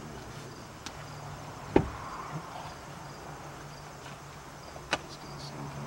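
Sharp knocks from masons setting a stone cornerstone into its recess in a concrete-block wall: a faint tick, then two loud knocks about three seconds apart, over a low steady hum.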